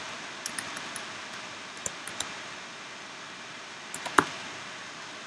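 A few scattered computer keyboard keystrokes over a steady background hiss, with one sharper key click about four seconds in.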